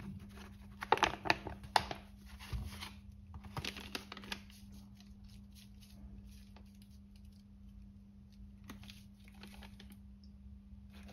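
Small handling noises: a cluster of sharp clicks and rustles about a second in and another around four seconds in, then only a steady low hum.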